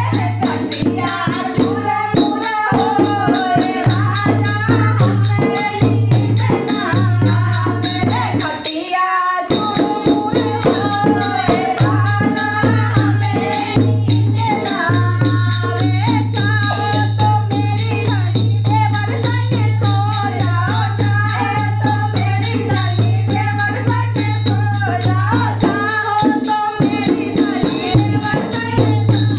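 Indian folk song music: a wavering melody over a steady low drone and a dense percussion beat, with a brief break about nine seconds in.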